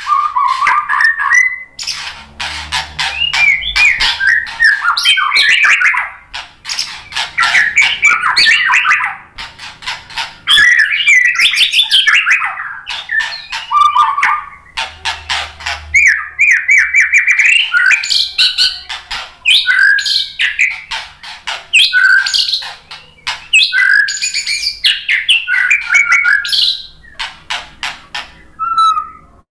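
White-rumped shama singing in full voice: a long, varied string of whistled phrases run together with fast, harsh clicking chatter, broken by a few short pauses.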